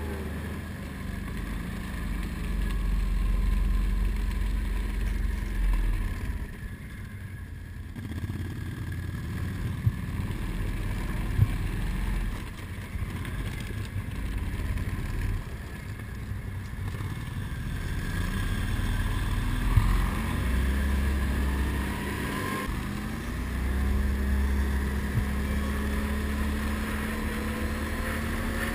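ATV engine running steadily while riding along a gravel track, with low rumble. The engine pitch rises and falls a few times in the second half, and there are a couple of sharp knocks.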